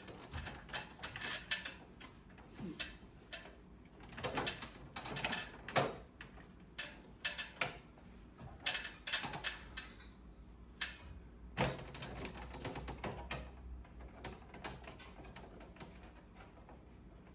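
Irregular plastic clicks, taps and knocks from the panels and parts of an air conditioner's indoor unit being handled and fitted back together, with a few sharper knocks among them.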